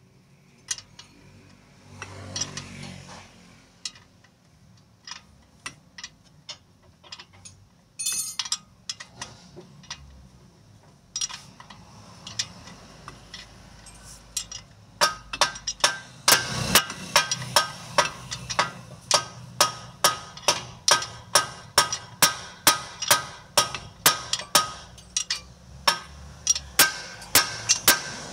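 A hammer striking metal: scattered taps and clinks at first, then from about halfway a steady run of blows, about two a second, each with a short metallic ring.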